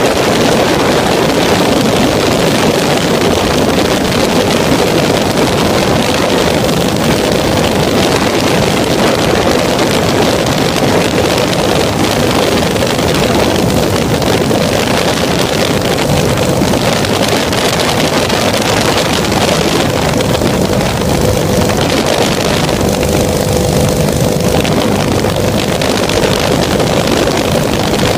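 Weedhopper ultralight's two-stroke engine running at steady cruise power in flight, a continuous drone under heavy wind rush on the microphone.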